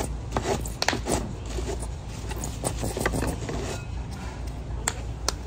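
Steady low restaurant hum with scattered small clicks and knocks from handling a plastic condiment bottle and the tableware over a bowl of pho.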